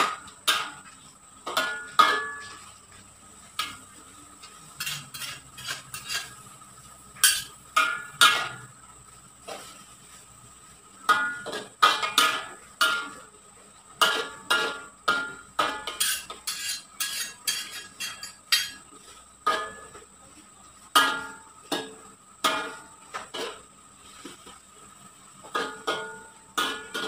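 Metal spatula and spoon scraping and clanking against a wok while stir-frying: irregular clinks, one to three a second, each ringing briefly.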